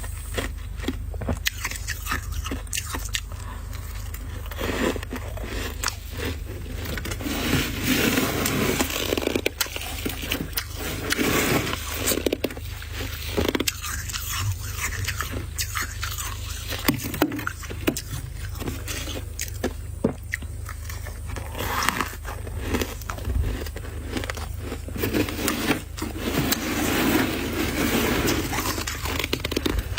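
Freezer frost being scraped and crunched by hand, with a continuous run of rough scraping and crisp crunches of packed frost.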